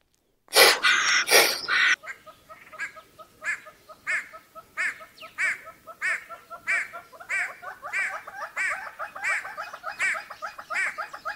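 An animal calling in a steady rhythmic series of short chirps, a stronger one about every half second or so with quicker softer ones between. A loud, short noisy sound comes just before them, about half a second in.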